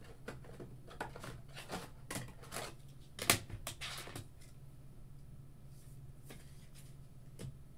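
Trading cards being handled at a table: a run of light rustles and clicks for about four seconds, with one sharper click about three seconds in, then only a low steady hum.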